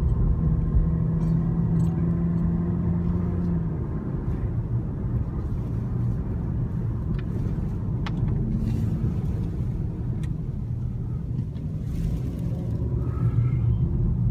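Car driving, heard from inside the cabin: a steady low rumble of engine, road and wind, with a steady hum over the first few seconds and a couple of faint ticks near the middle.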